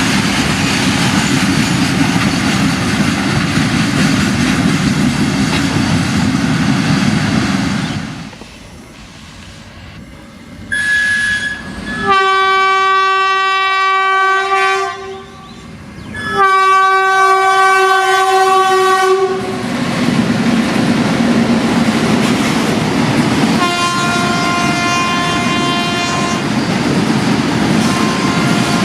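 Train rumbling along the rails, then after a lull a locomotive's air horn gives a short toot and two long blasts of about three seconds each. A train then runs past with wheel clatter while a fainter horn sounds once more.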